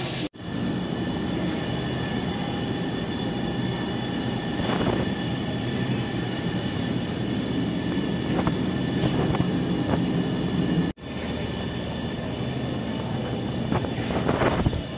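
Steady supermarket hum from refrigerated display cases and ventilation, with a few faint fixed tones, dropping out abruptly twice, about a third of a second in and again near eleven seconds.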